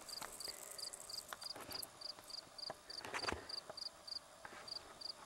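An insect chirping steadily in high, short, evenly spaced pulses, about four a second, with scattered faint clicks and rustles and one louder knock about three seconds in.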